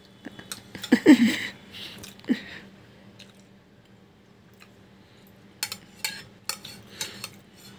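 Metal spoon clinking and scraping on a steel plate as biryani is scooped and mixed, in a run of sharp clicks in the second half. A brief vocal sound about a second in.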